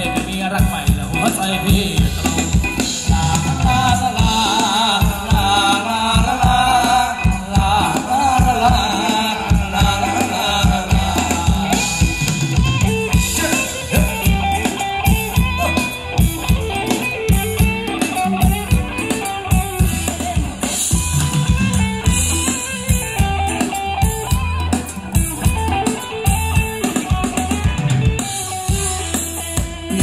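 Live band playing upbeat Thai ramwong dance music over loudspeakers: a steady drum-kit beat throughout, with a wavering sung or played melody carried most clearly in the first third.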